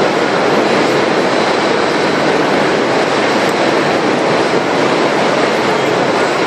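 Steady, loud rushing noise that holds at one level throughout, with no pitch and no rhythm.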